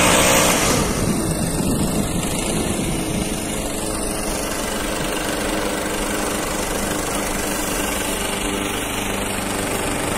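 Stihl backpack leaf blower's engine running steadily close by, a little louder in the first second.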